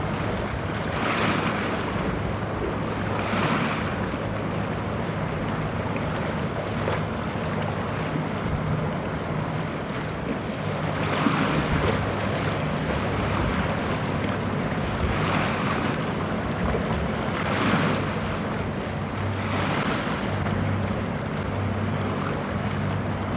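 A ship's engine drones low and steady under water washing and splashing, which swells every few seconds. Wind buffets the microphone.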